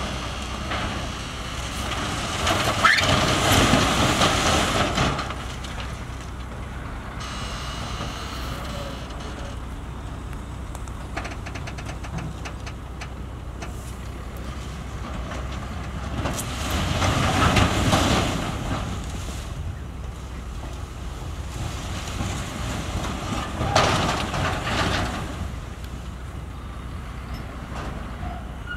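Heavy earthmoving machinery running steadily, with three louder, noisy surges: one from about two to five seconds in, one around seventeen to eighteen seconds, and a shorter one near twenty-four seconds.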